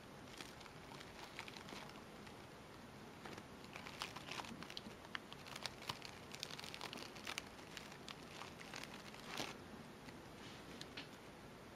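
Faint rustling and crinkling of a fabric flower and its wire stems being pressed and handled on a metal hair clip, with scattered small clicks that grow busier in the middle and one louder crackle near the end.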